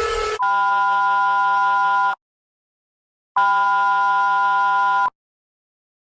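Electronic emergency alert alarm tone: two identical steady, horn-like chord blasts of about 1.7 seconds each, a little over a second apart, each cutting off sharply. The loud tail of a different alarm sound ends just before the first blast.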